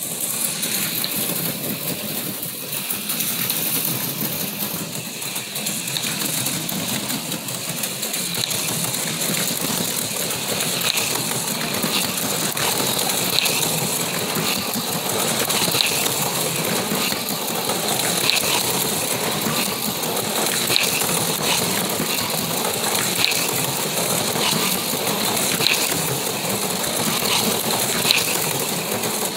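HO scale slot cars running on a plastic track: small electric motors whirring and gears and pickups rattling on the rails, with a sharper click about every two and a half seconds in the second half.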